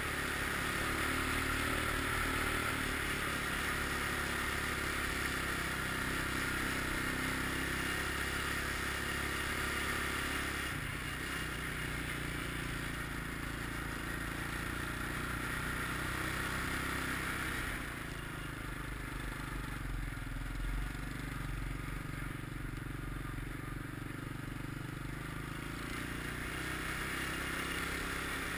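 ATV engine running steadily as the quad rides along a snowy trail, with a slight drop in level about two-thirds of the way through.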